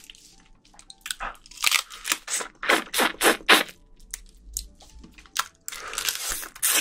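Close-miked eating of soy-marinated raw crab: a run of sharp crunches and crackles as the shell is bitten, then a longer hissing suck near the end as the meat is drawn out of the shell.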